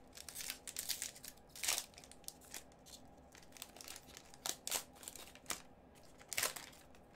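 Plastic wrapper of a hockey trading card pack crinkling and crackling as gloved hands tear it open. The crackles come irregularly, the loudest about a quarter of the way in and again near the end.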